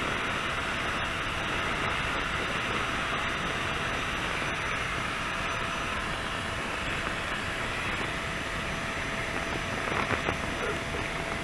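Small rechargeable electric air pump running steadily as it inflates an inflatable sleeping mat, a steady hiss-like whir with a faint hum, and a few light handling clicks near the end.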